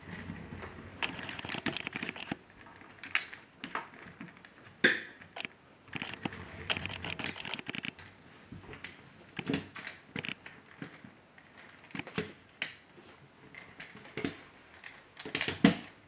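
Small toy car built from magnetic wooden Tegu blocks, pushed and rolled by hand on a wooden tabletop. Stretches of rolling-wheel rumble alternate with sharp clicks and knocks of the wooden pieces; the loudest knock comes about five seconds in, with another near the end.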